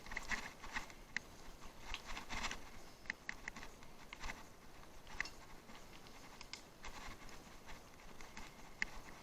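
Bicycle rolling over rough ground: irregular light clicks, rattles and crunches from the tyres and frame.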